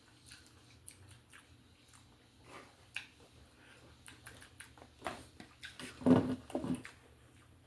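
Chewing and small eating sounds: soft mouth noises and light clicks while omelet is eaten, with a louder cluster of short sounds about six seconds in.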